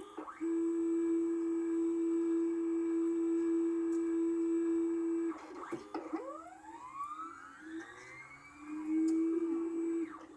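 NEMA 23 stepper motors driving the mill's axes through 2-to-1 belt pulleys under a CNC program. A steady whine holds for about five seconds, then the pitch sweeps up and down, and a steady whine returns near the end.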